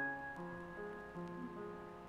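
Slow, soft piano music: a few notes struck and left to ring.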